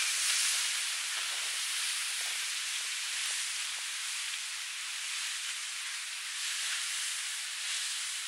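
Steady rushing hiss of surf and churning water, swelling and easing slightly in level.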